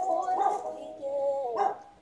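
A dog howling and whining in long, wavering cries with a couple of sharp barks, cutting off abruptly near the end.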